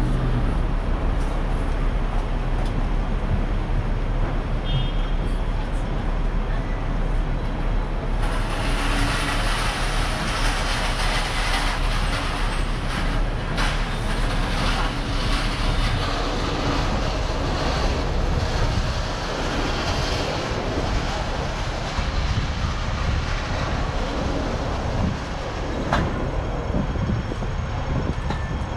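Hong Kong double-deck electric tram running along its street tracks, heard from on board: a steady rumble of wheels on rail and motor, with city traffic around it. About eight seconds in, a brighter hissing rail and traffic noise comes up, then eases off in the second half.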